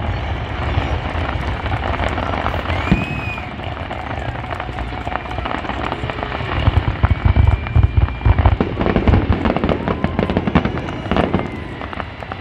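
Fireworks display in a dense barrage: rapid, overlapping bangs and crackling over a continuous low rumble, growing denser and louder about six or seven seconds in.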